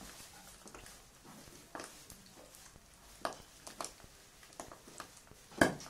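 Meat frying in hot fat in a wok over a wood fire: a faint steady hiss with scattered pops and crackles at uneven intervals, the loudest near the end.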